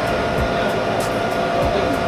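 Milling machine running, its cutter taking a facing cut across a workpiece: a steady machine whir with a few fixed tones and an occasional sharp tick, one about a second in.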